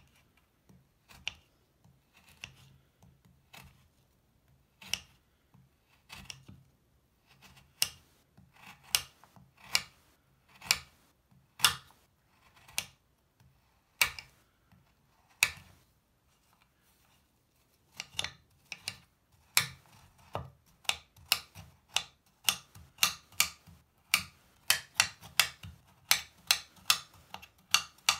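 Kitchen knife cutting through a dry, crumbly Lush bubble bar on a marble-and-wood cutting board: separate crisp cuts about one a second as it is sliced, then quicker, denser chopping strokes from about two-thirds of the way in as the slices are chopped into crumbs.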